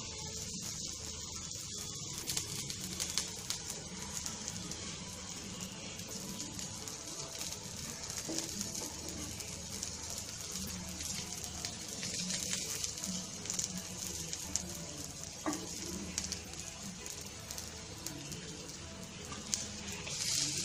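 Onion dosa sizzling in oil on a hot dosa pan, a steady crackling hiss, with a spatula now and then scraping and clicking against the pan as the dosa is lifted and folded.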